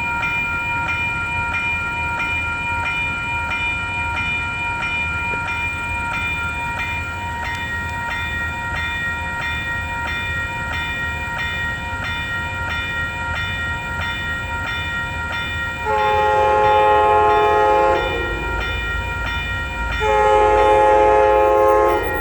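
Commuter-rail cab car's bell ringing steadily, about two strikes a second. Near the end the train horn sounds twice as a loud chord: one blast of about two seconds, then a second that is cut off at the end, over a growing low rumble.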